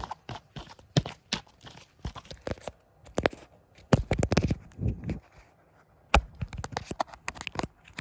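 Cat nibbling and rubbing its face against the phone filming it: irregular scratchy clicks and rustling of teeth and fur right on the microphone, with a few low rumbles near the middle.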